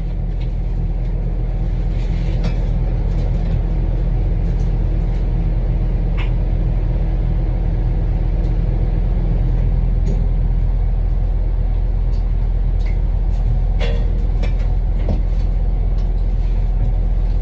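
A steady low machine rumble, like an engine running, with a few scattered short clicks and knocks.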